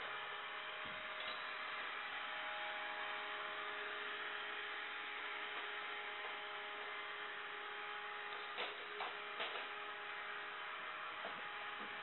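Small robotic vacuum cleaner running on a tiled floor: a steady motor hum with a faint whine and brush hiss. A few light clicks or knocks come in about nine seconds in and again near the end.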